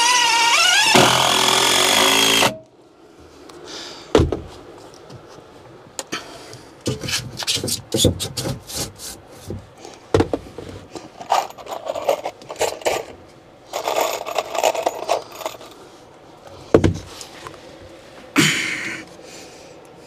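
A power drill running for a couple of seconds with its pitch rising and falling, then stopping abruptly. After it come scattered knocks, clicks and clatter of boards and tools being handled, with a few shorter rasping bursts midway and one near the end.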